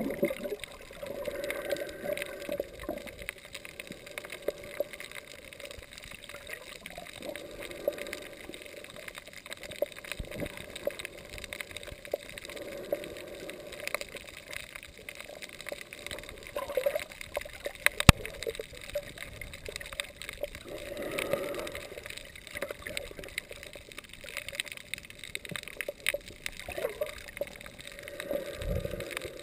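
Muffled gurgling and sloshing of water, heard from a camera just under a choppy surface, swelling and fading every few seconds. One sharp click about two-thirds of the way through.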